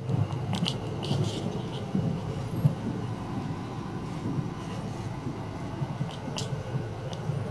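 Running noise of the Cassiopeia sleeper train's E26 series passenger coach heard from inside the cabin: a steady low rumble of the moving train, with a few sharp clicks.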